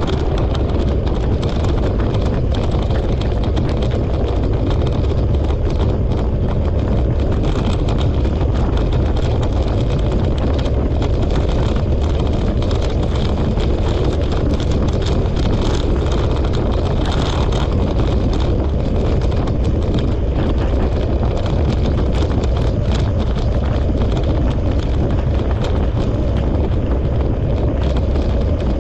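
Wheels of a dryland dog-sled rig rolling steadily along the trail, pulled by a four-dog team, with wind buffeting the microphone. The noise is loud and even throughout, heavy in the low end with a fine crackle over it.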